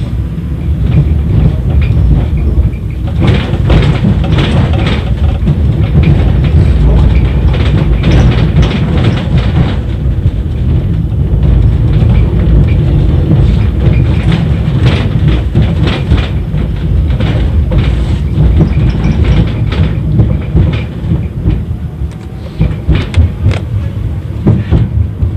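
71-931 Vityaz tram running at speed, heard inside the car: a steady low rumble with frequent sharp clicks and knocks as the wheels pass over rail joints, the knocks coming more sharply near the end.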